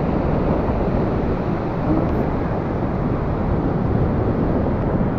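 Steady wind buffeting the microphone, a rumbling noise with no distinct events.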